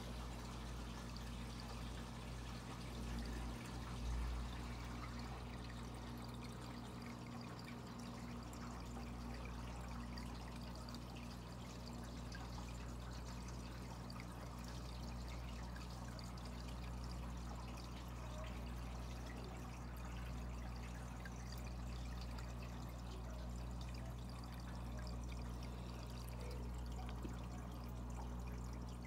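Aquarium water trickling steadily, with a steady low electrical hum underneath and a brief low bump about four seconds in.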